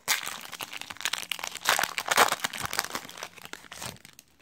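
Foil Yu-Gi-Oh! booster pack wrapper crinkling as the pack is opened, a dense crackling rustle that stops shortly before the end.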